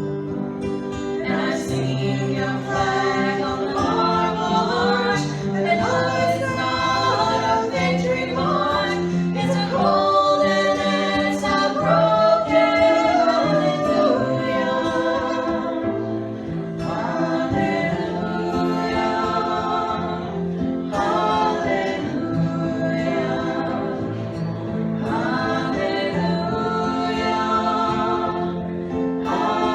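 Several voices singing a song together, accompanied by acoustic guitar.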